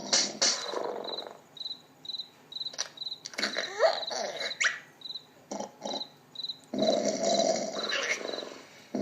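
Cartoon snoring sound effect: a long rasping snore, then a quieter stretch with a few short rising squeaks, then another long snore near the end. Under it a high cricket-like chirp repeats about twice a second.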